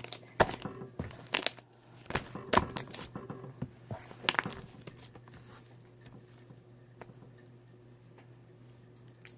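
Homemade slime being squished and stretched by hand, giving sharp crinkly crackles and pops for the first four or five seconds, then stopping, leaving a faint steady low hum.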